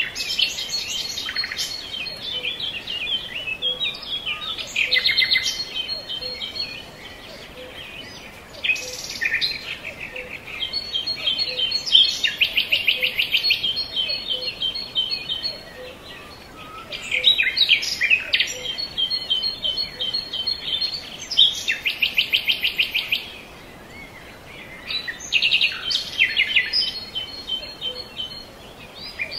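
Birds singing: bursts of quick, high chirps and trills a few seconds long, with short pauses between them.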